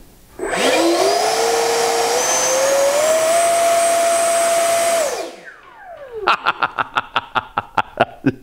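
Freewing F-35 Lightning II's 70 mm electric ducted fan on a 6S battery in a bench thrust check, spooling up gently in steps to a loud, high whine, holding for a few seconds, then spooling down about five seconds in. A run of quick ticks, about five a second, follows near the end.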